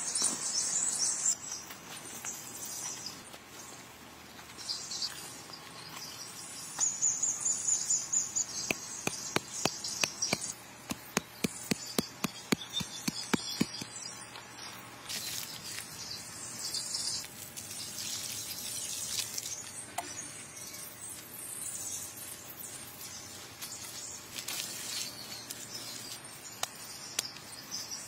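Forest insects buzzing in waves, with occasional bird chirps. For a few seconds in the middle comes a run of quick sharp taps, about four a second.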